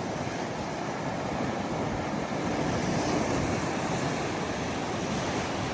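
A steady, even rushing noise outdoors, with no distinct events.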